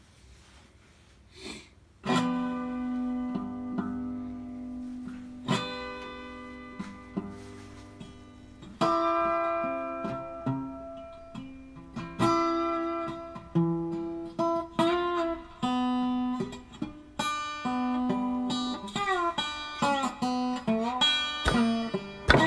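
Background music: solo acoustic guitar picking single notes and chords, starting about two seconds in.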